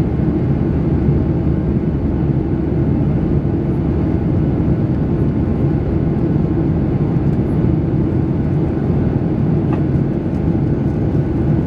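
Steady cabin noise inside a Boeing 737-800 climbing after takeoff: a deep, even rumble of its CFM56-7B engines and the airflow, unchanging throughout.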